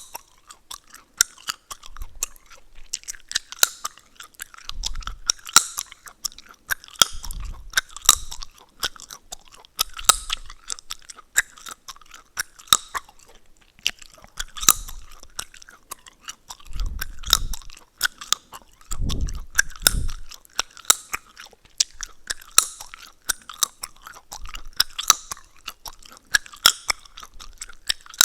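Gum chewing close to the microphone: wet mouth sounds with rapid sharp crackles and snaps of the gum, in clusters about once a second, with a brief pause about halfway through.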